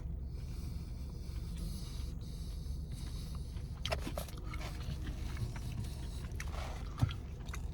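Steady low rumble of a car idling, heard from inside the cabin, with a few light clicks about four seconds in and one sharp knock about seven seconds in.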